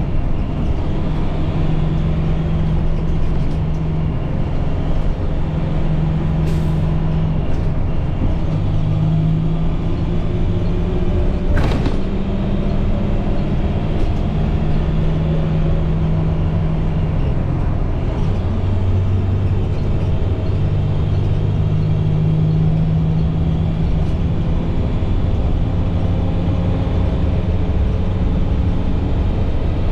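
International MaxxForce DT inline-six diesel in a school bus running under way, a steady low engine hum whose pitch steps up and down several times. The bus's transmission is faulty and shifts only with great difficulty. One sharp click comes near the middle.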